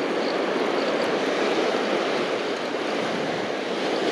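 Steady rush of ocean surf breaking and washing over shallow sand.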